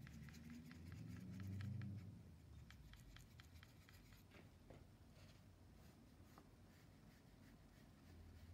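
Faint quick clicks and scrubbing of a paintbrush picking up paint from the pans of a watercolour tin, about five a second for roughly four seconds, then sparser, fainter strokes.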